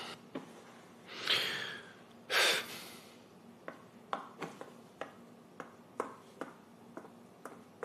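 A man's two heavy breaths, one after the other. Then footsteps in slippers come down hard stairs, short sharp taps a little more than two a second.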